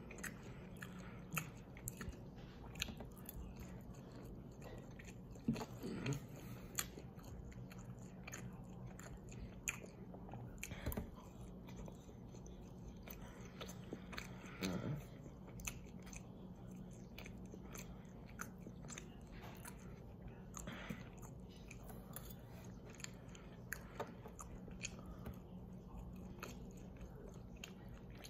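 A person chewing a mouthful of breaded lemon chicken with couscous, with many small clicks and soft smacking sounds of the mouth scattered throughout over a faint steady hum.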